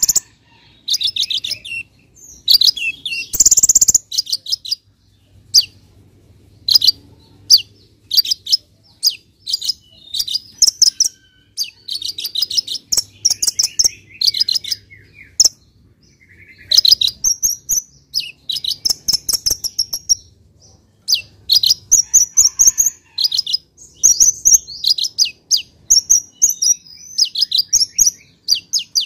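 Copper-throated sunbird (kolibri ninja) singing a fast, varied stream of high twittering trills and chirps, broken by short pauses. A loud harsh burst comes about three seconds in.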